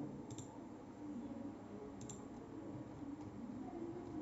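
Computer mouse clicking: two sharp clicks, about 0.3 s and 2 s in, with a few fainter ones later over faint room noise.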